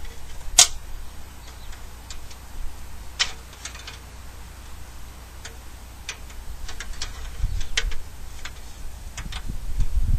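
Scattered light clicks and taps at irregular intervals, the loudest about half a second in, over a steady low rumble.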